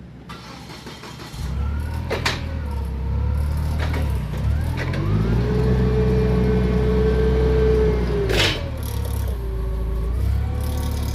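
Forklift engine running, revving up and holding while the hydraulic forks lift a heavy press roller, then dropping back to idle and briefly revving again. It carries a steady whine while revved, and there are two sharp knocks, one early and one as the revs drop.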